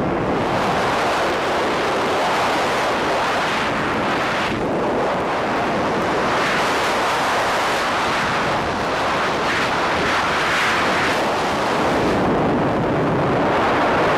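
Freefall wind rushing over a tandem skydiving instructor's handheld camera microphone: a loud, steady rush of wind noise that swells and eases slightly.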